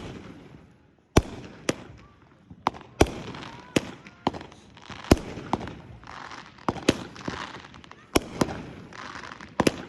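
Fireworks going off: a rapid, irregular string of sharp bangs, roughly two a second, with crackling between them that thickens in the second half.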